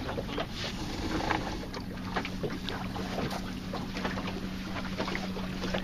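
Water lapping and splashing against the wooden hull of a small open sailboat under way, with many small irregular splashes and some wind on the microphone. A steady low hum comes in about a second and a half in.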